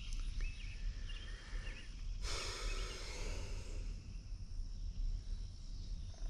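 Quiet riverside ambience: a low steady rumble, and about two seconds in a soft rush of noise that lasts nearly two seconds.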